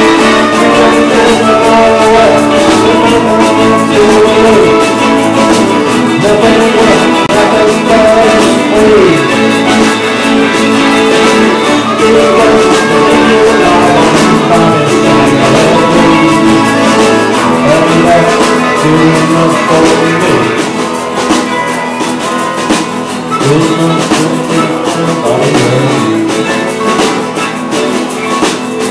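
Live acoustic and electric guitars playing an instrumental passage: strummed acoustic chords with the electric guitar picking melodic lead lines. The playing gets a little softer about two-thirds of the way through.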